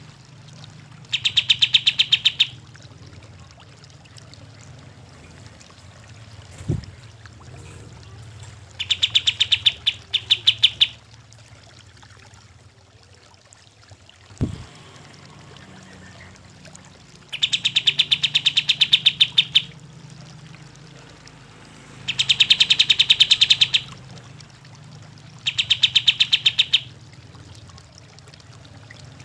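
Kapas tembak, a bulbul, singing in repeated bouts of fast, evenly pulsed chattering notes, each bout about a second and a half to two seconds long, about six bouts with pauses between. A steady low hum runs underneath, with two soft thumps in the pauses.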